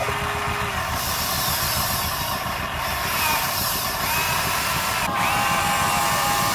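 Huina metal RC excavator's small electric motors whining as its boom and arm move, over a steady low rumble. A higher whine starts about four seconds in and changes pitch again about a second later.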